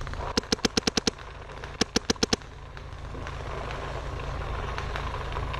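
Paintball marker firing in two rapid bursts of shots, about eight shots a second, the second burst coming about a second after the first.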